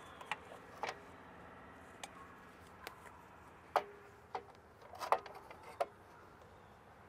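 A sheet-metal AC disconnect enclosure being handled against a brick wall: about eight light clicks and taps of metal, the loudest near the middle with a short ring after it, and a small cluster a little later.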